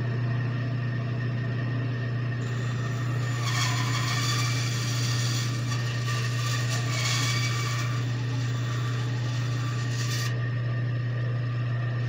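Bandsaw running and making an angled cut through a small wooden blank on its table, which is tilted to 45 degrees. The cutting noise starts about two and a half seconds in and stops about ten seconds in, over a steady low hum.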